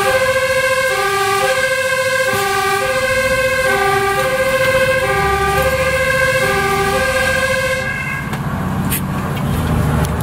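Fire engine's two-tone siren sounding, alternating a low and a high note about every half second. It stops about eight seconds in, leaving the low rumble of the fire truck's engine heard from inside the cab.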